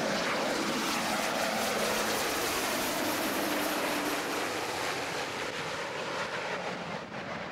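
Sea King helicopter's turbine engines and rotor running as it hovers nearby and then flies off, the sound growing fainter near the end.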